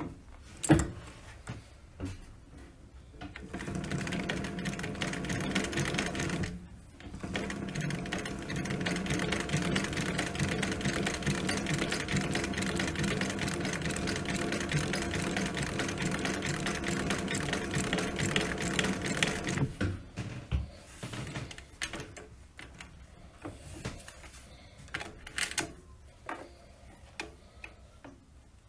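Singer 111W152 walking-foot, triple compound feed industrial sewing machine stitching through leather: a few clicks, then it runs in a short burst of about three seconds, stops briefly, and runs steadily for about twelve seconds more before stopping, with scattered clicks of handling after.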